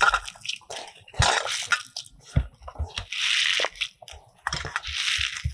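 A hand squeezing and mashing cooked leftover rice in a stainless steel bowl, in irregular bursts, with a few soft knocks.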